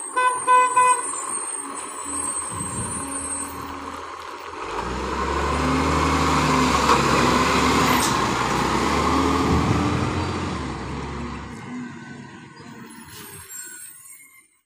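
Side-loader garbage truck driving past: its diesel engine drone builds as it comes close, is loudest as it passes, then fades as it pulls away down the street. Three short beeps sound right at the start.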